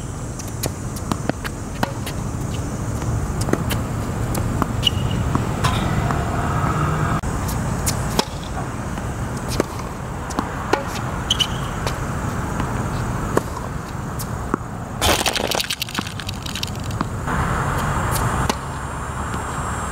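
Tennis ball struck by rackets and bouncing on an outdoor hard court during play: scattered sharp pops and knocks over a steady low rumble. A short loud rush of noise comes about three-quarters of the way through.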